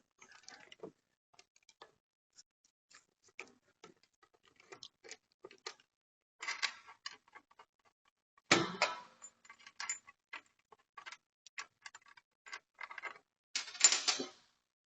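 Hand tools and parts being handled while taking off a motorcycle wheel: scattered sharp clicks and ticks, a louder knock about eight and a half seconds in, and a short clatter near the end.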